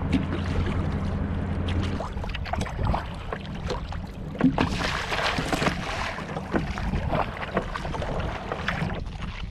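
Choppy sea water splashing and slapping against the hull of a kayak under way, irregular and uneven. Wind rumbles on the microphone for the first couple of seconds, and there is a louder splash about halfway through.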